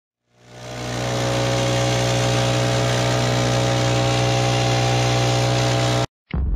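Stihl BR 700 backpack leaf blower's two-stroke engine running steadily with a rush of air from the nozzle, fading in over the first second and cutting off suddenly about six seconds in. A sudden boom starts just after.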